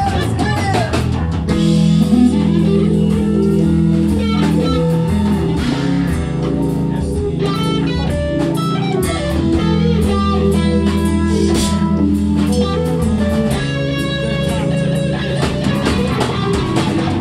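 Live rock band playing an instrumental passage: electric guitars and bass guitar over a drum kit, with keyboard chords. The notes are held and sustained over a steady beat.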